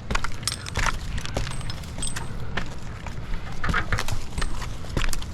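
Irregular knocks and clinks of a tree climber's gear as he works his way up the trunk of a dead oak, over a steady low rumble.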